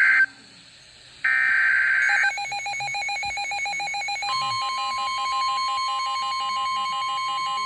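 Emergency Alert System SAME header data bursts, a harsh digital screech: one cuts off a fraction of a second in and another lasts about a second. Then a weather radio's electronic alarm beeps rapidly, joined about four seconds in by the steady 1050 Hz NOAA Weather Radio warning alarm tone, signalling a warning.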